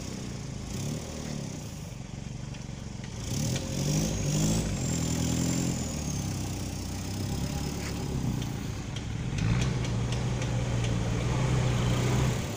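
Off-road 4x4 engine revving under load up a steep climb. The revs rise about three and a half seconds in, settle, then climb again to a strong steady note near ten seconds, held until just before the end.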